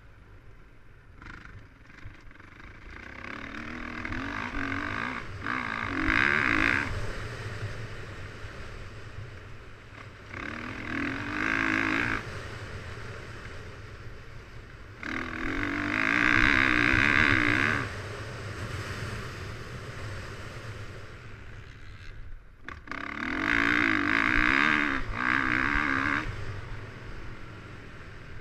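Dirt bike engine revving in four surges as the rider opens the throttle and then backs off between them, with wind rumbling on the bike-mounted camera's microphone throughout.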